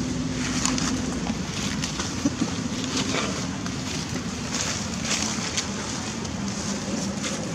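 Steady low hum in the background, with brief, faint rustles and crackles of dry leaf litter as the macaques move.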